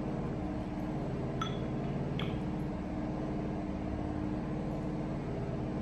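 A steady low machine hum made of several fixed tones. Two light clicks sound about a second and a half and two seconds in, as a wooden utensil taps a ceramic bowl.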